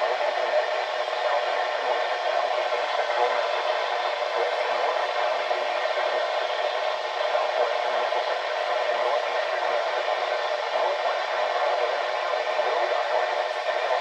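Steady radio static hiss from a NOAA weather radio receiver, with no voice on the channel.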